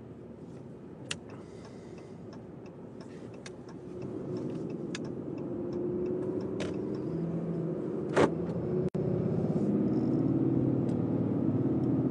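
Pickup truck driving, heard from inside the cab: a steady engine and road rumble that grows louder about four seconds in, with shifting engine tones and scattered light clicks.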